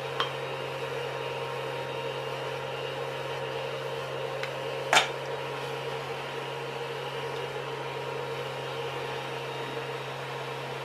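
Creality Mini 3D printer's fans running with a steady electric hum while the bed is heated. A light click comes just after the start, and a sharper single click about five seconds in.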